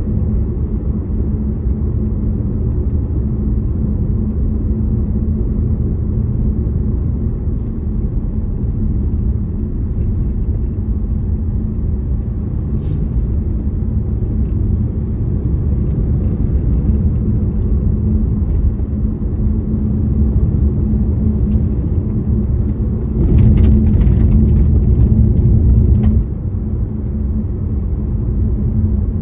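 Car driving along a road: a steady low rumble of engine and tyres with a steady hum. About three-quarters of the way through it grows louder and hissier for about three seconds, then drops back suddenly.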